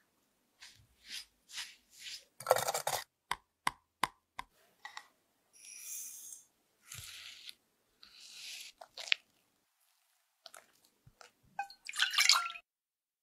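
Close-miked food-preparation sounds in separate short takes: soft scraping and a run of sharp taps at a glass bowl of butter-moistened biscuit crumbs, a hiss of sugar poured onto cream cheese about six seconds in, and milk pouring and splashing into an enamel saucepan near the end.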